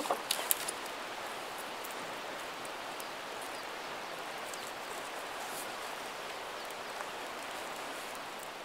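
Small campfire of twigs and kindling crackling steadily, with a few sharper snaps and knocks in the first half-second as sticks are laid over the flames.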